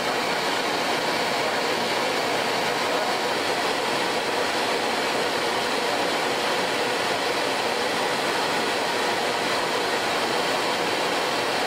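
Steady, even rushing noise with a faint hum underneath, like air-handling machinery; it does not change.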